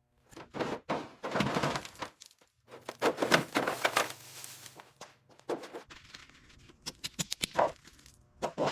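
Hand-work noises: a string of knocks and clunks, with longer stretches of scraping noise about a second in and again around three to four seconds in.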